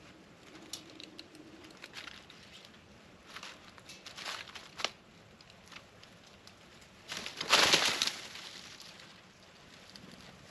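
Birds at a plate of peanuts: scattered light taps and rustles, with one loud, short rushing flurry about seven seconds in.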